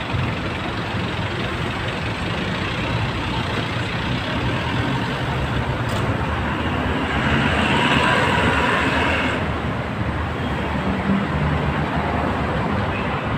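Steady road traffic noise from cars passing along a busy street. It swells louder for a couple of seconds about two-thirds of the way through.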